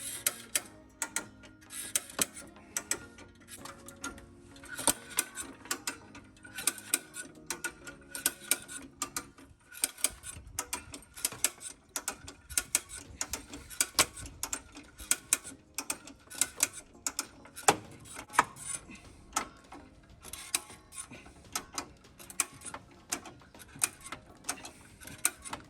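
Hand-cranked winch ratchet clicking over and over as it is worked, with irregular sharp clicks several times a second, tensioning a line to pull out a crash-damaged front frame.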